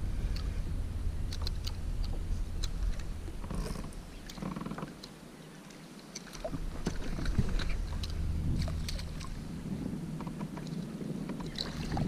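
Wind rumbling on the microphone over water lapping against a fishing kayak, with scattered light clicks and ticks. The wind drops away for a second or two around the middle, then picks up again.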